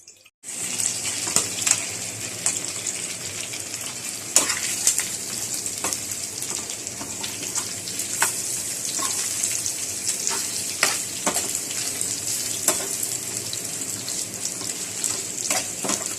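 Fried pork sizzling in oil in a pan with sautéed onion: a steady hiss that starts suddenly, with scattered sharp pops and crackles.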